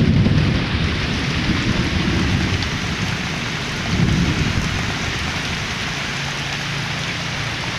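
Heavy rain pouring steadily, with low rumbles that rise and fade a few times in the first half.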